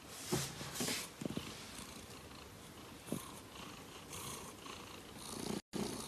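Domestic cat purring steadily, with a few short faint blips over it in the first couple of seconds and a brief break just before the end.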